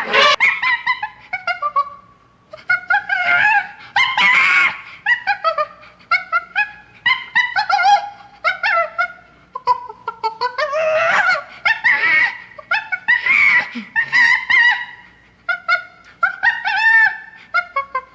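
A rapid string of short, high-pitched squeaky yelps and chattering calls, cartoon-style vocal sound effects dubbed over the animals, with only brief pauses between bursts.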